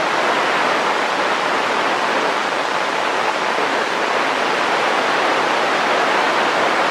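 Steady hiss of radio static on a NOAA Weather Radio broadcast, with no voice coming through.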